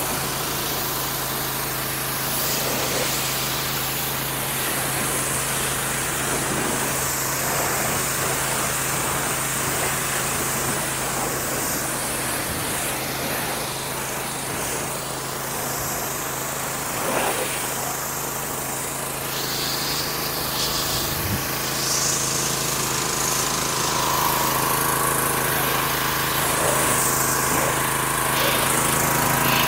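Pressure washer running steadily: a constant motor drone under the hiss of the spray.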